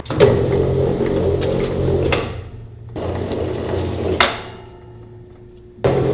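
Electric dough sheeter running with a steady hum as its belt carries pie dough through the rollers. The hand lever clunks and the motor winds down and stops twice, starting again abruptly each time, the last restart near the end.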